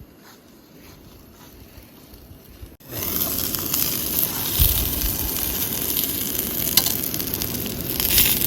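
Food frying in a pan, starting suddenly about three seconds in: a loud, dense sizzle full of fine crackles.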